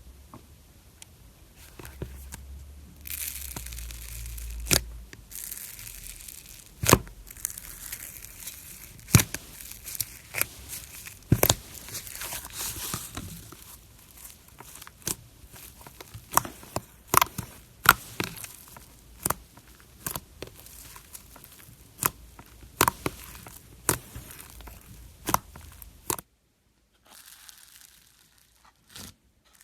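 Slime being squished and stretched by hand: a crinkly, crackling texture with sharp pops every second or two as air pockets in the slime burst. It breaks off near the end, and a quieter slime sound follows.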